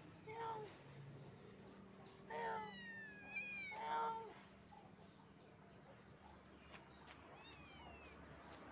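Young kitten meowing three times: a short meow, then a longer drawn-out one, then another short one.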